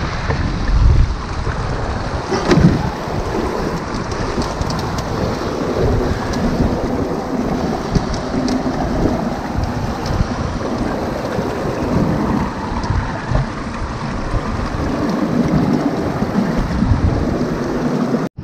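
Rushing water of a swollen, fast river, with water running over the riffles of a gold dredge's sluice box. Wind buffets the microphone now and then.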